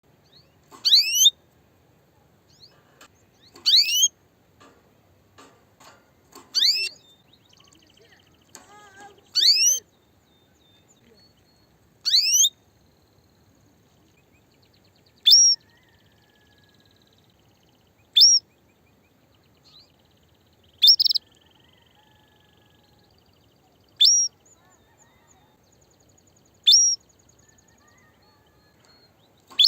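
Female canary calling: a single short, rising call repeated about every three seconds, the mating call of a hen ready to breed.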